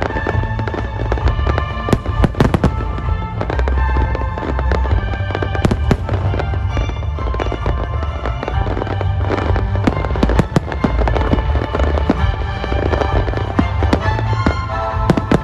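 Aerial fireworks shells bursting in repeated bangs and crackles, with a cluster of sharp bangs about two seconds in and more scattered through. Music plays steadily underneath.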